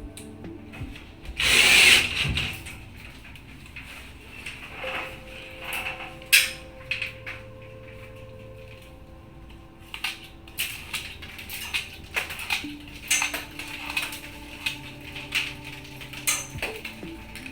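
Power drill driving a screw into plasterboard, a short burst about a second in, followed by scattered clicks and knocks of tool and board handling. Faint background music underneath.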